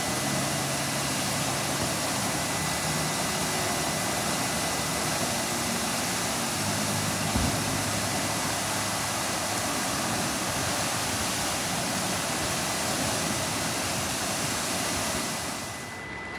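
Steady rushing hiss of a tall jet of water spraying high into the air, with a faint steady high tone under it and a single thump about seven seconds in. The rush falls quieter near the end.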